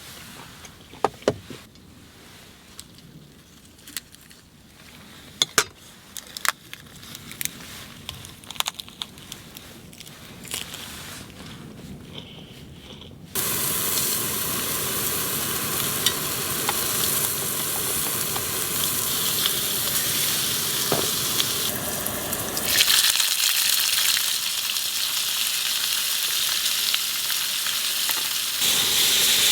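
A few light clicks and taps of cooking utensils, then about thirteen seconds in, food hits a hot pan and starts sizzling loudly and steadily. The frying grows brighter and hissier about ten seconds later.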